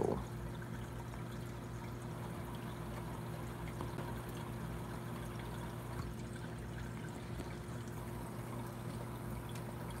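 Reef aquarium's circulating water trickling and pouring steadily, with a steady low hum underneath.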